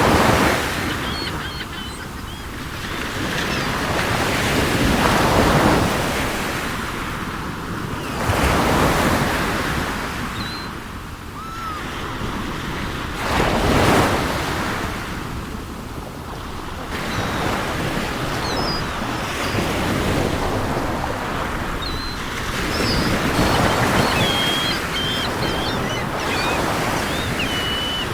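Waves washing onto a shore, swelling and falling back every few seconds, with faint bird calls chirping over them, more often near the end.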